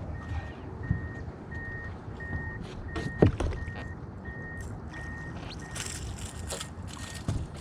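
Electronic alarm beeping steadily, about three short beeps every two seconds, stopping near the end, with scattered knocks and handling sounds in the boat; the loudest knock comes about three seconds in.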